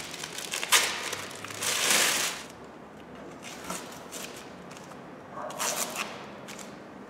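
Masking paper and tape crackling, crumpling and tearing as they are pulled off a car's bodywork, loudest in a long rip about two seconds in. After that, quieter handling sounds with a short rustle near the end.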